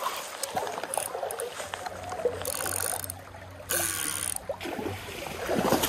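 A spinning reel's drag buzzing in two short runs, about two and a half and nearly four seconds in, as a hooked king salmon pulls line, over the steady sound of river water.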